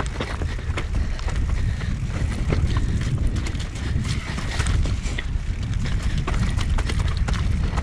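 Mountain bike descending a rough, muddy singletrack: tyres rumbling over dirt and stones, with irregular clicks and knocks of the chain and frame rattling, over a low rumble of wind on the microphone.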